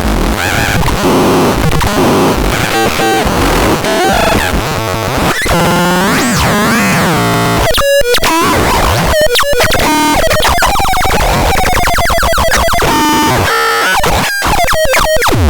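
Harsh, glitchy electronic noise from the PAXDAX sound device: warbling tones that slide up and down over a hiss, with several abrupt cut-outs about eight, nine and a half and fourteen seconds in.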